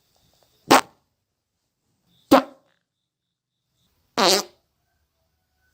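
Three short human farts, one after another, each a brief pitched blast with silence between them.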